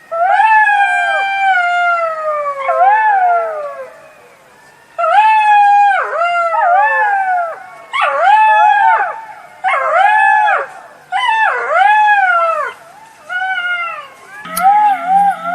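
Jackal howling: a long wail falling in pitch, then after a short pause a run of shorter wails that rise and fall again and again. Near the end a sharp click, then a low steady hum comes in under the calls.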